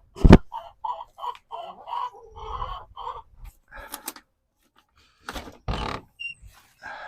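Hens clucking in short repeated notes while feeding, with a sharp knock right at the start and a brief noisy rustle about five and a half seconds in.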